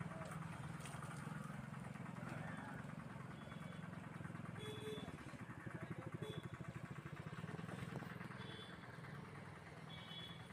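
A vehicle engine running steadily at a low idle, its beat coming through more plainly about five to seven seconds in. A few short high chirps sound over it.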